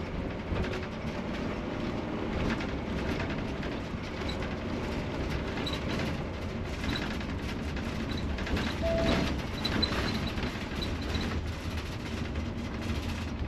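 A motorhome under way: steady road and engine noise heard inside the cab, a constant low rumble.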